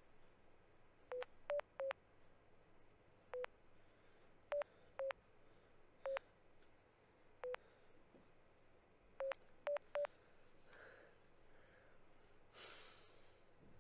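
Smartphone keypad beeps as a number is tapped in: eleven short tones in uneven groups, then a brief rustle near the end as the phone is lifted to the ear.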